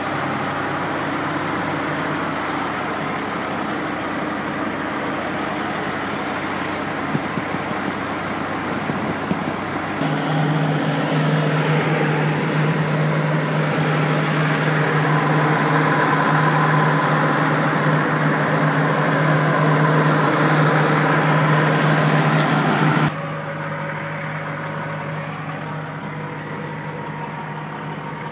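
John Deere 200LC excavator's diesel engine running steadily at an even speed, a constant low hum. It gets louder partway through, then drops suddenly to a quieter level near the end.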